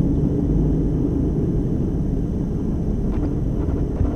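Inside the cab of a moving DAF lorry: steady engine and road drone, with a few faint light clicks about three seconds in.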